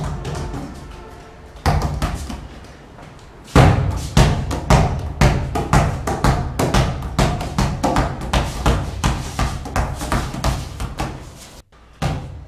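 Background music score with a steady, quick percussive beat that comes in loudly about three and a half seconds in, over sustained low tones, breaking off briefly near the end.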